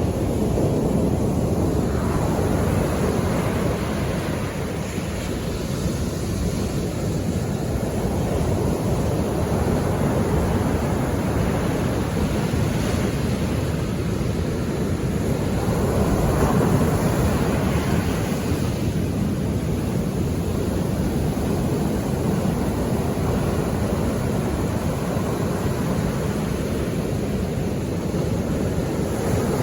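Sea waves breaking and washing on the shore: a steady rushing that swells in surges now and then.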